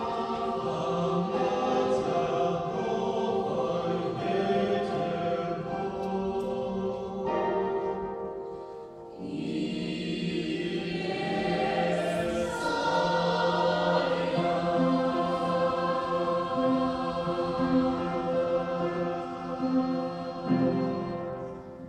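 Church choir singing a Russian hymn in several parts, with long held chords. The singing dips briefly about eight seconds in, then swells again and closes near the end.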